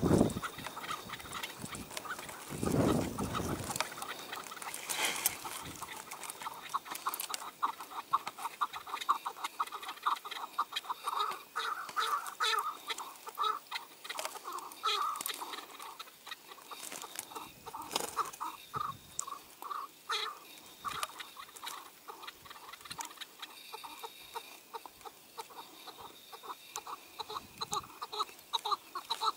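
Chukar partridges calling: runs of rapid, repeated clucking notes throughout, with a brief low rumble about three seconds in.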